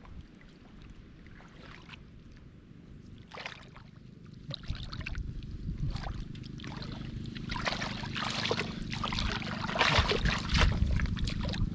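Shallow water sloshing and splashing as fish are grabbed by hand. It is faint at first and grows louder and busier over the second half.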